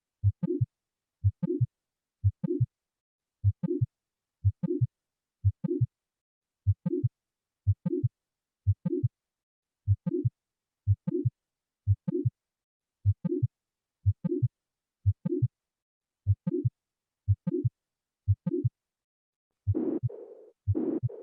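Recorded heart sounds as heard through a stethoscope for auscultation training: a regular train of paired lub-dub beats at about one beat a second, with silence between them. Near the end a different recording begins, with louder and harsher noisy sounds.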